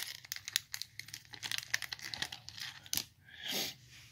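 Foil trading-card pack wrapper crinkling and tearing as it is pulled open by hand: a quick run of sharp crackles, then a brief rustling swish about three and a half seconds in.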